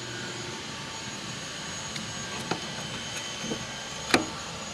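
Steady background drone with a few light clicks, and one sharper tap about four seconds in.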